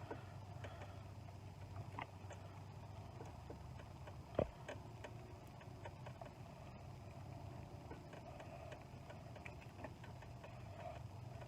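Faint handling sounds of electrical tape being wrapped around a spliced wire connection: small scattered clicks and rustles, with one sharper tap about four seconds in, over a low steady hum.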